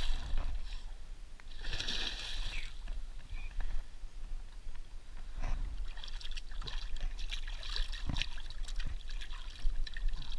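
Shallow lake water splashing as a released carp kicks free of the hands and swims off: two louder splashes in the first couple of seconds, then light splashing and trickling as hands and a dog move in the water.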